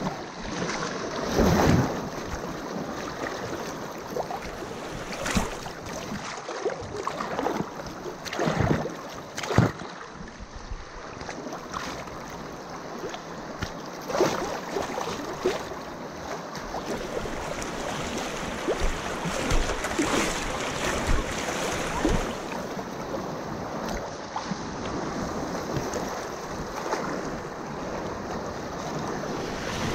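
Shallow river rapids rushing close to the microphone, water slapping against it in irregular louder splashes, the sharpest about ten seconds in.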